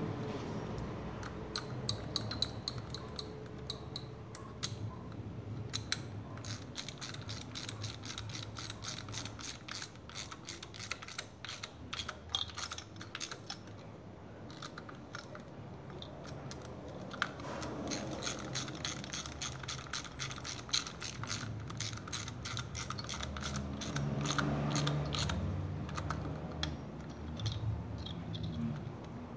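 Ratchet wrench clicking in quick runs, tightening the mounting bolts of the ignition coils.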